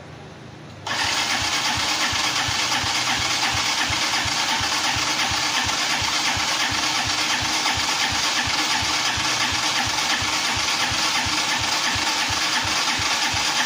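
Coolster 250cc ATV's engine turning over on its electric starter button: a steady, even rhythmic chug that starts suddenly about a second in and keeps the same pace throughout without the engine catching.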